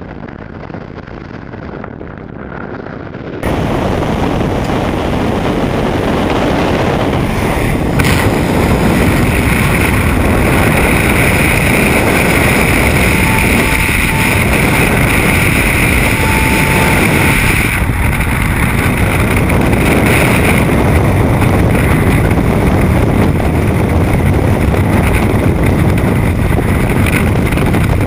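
Freefall wind rushing over a helmet camera's microphone, a loud steady rush that jumps louder and brighter a few seconds in. Two brief faint beeps sound around the middle.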